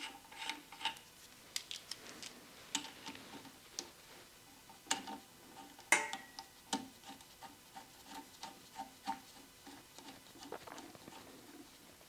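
Faint scattered clicks and clinks of small parts being handled, with one louder metallic clink and a brief ring about six seconds in.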